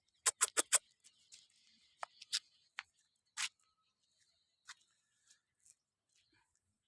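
Goats feeding: a quick run of four sharp snaps and clicks, then scattered single crunches and clicks of leaves and twigs being bitten and pulled.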